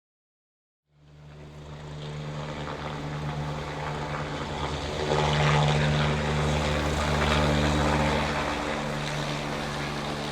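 A steady, aircraft-like drone fades in after about a second of silence: a low hum under a broad hiss, swelling around the middle and easing slightly near the end.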